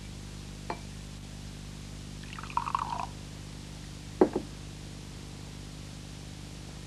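Liquid poured briefly into a drinking glass, followed a little over a second later by a sharp double knock, with a faint click before and a steady low hum throughout.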